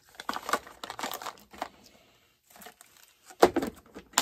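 Plastic parts bag crinkling as small parts are handled and picked out of it, then a few sharp knocks near the end, the loudest sounds in the stretch.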